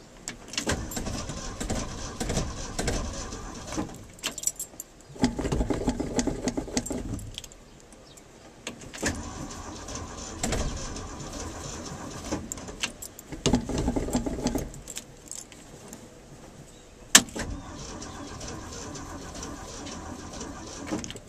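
1974 Ford F250 being cranked on the starter in about five separate tries, each lasting a few seconds with short pauses between, and the engine not catching on a cold start. A sharp click sounds about seventeen seconds in.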